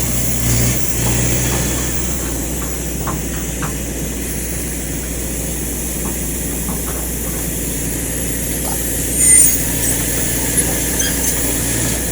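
Kobelco excavator's diesel engine running steadily, with a few faint knocks and one louder bump about nine seconds in.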